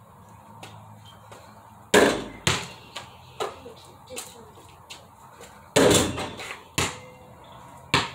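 A basketball thrown at a portable backyard hoop: two loud strikes on the hoop with a ringing tail, about two and six seconds in, each followed by a few softer bounces of the ball.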